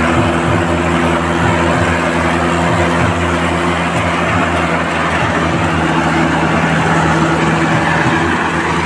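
Mahindra 585 DI XP Plus tractor's diesel engine running steadily as it pulls a loaded trailer, heard close up over a steady rush of road and wind noise.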